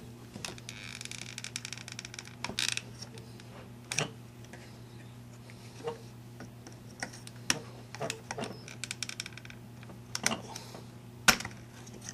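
Needle-nose pliers clicking and scraping against the plastic plug housing of a Black & Decker electric hedge trimmer, working the plug prong out of plastic melted by shorting. There are scattered sharp clicks and two short stretches of rapid scraping, one about a second in and one near the nine-second mark.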